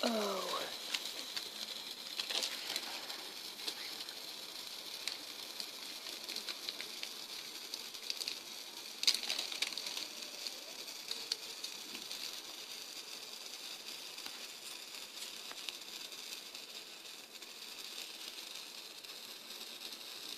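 A lit firework burning in a pot, giving a steady hiss with scattered crackles and a few sharper pops.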